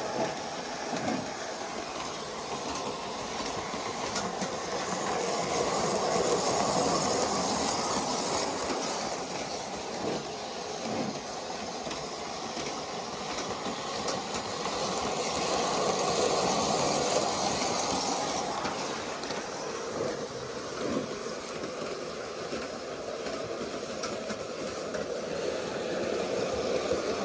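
G-scale electric model train, a Thomas the Tank Engine locomotive pulling two coaches and two open wagons, running steadily around a loop of track. It grows louder and softer about every ten seconds as it circles past.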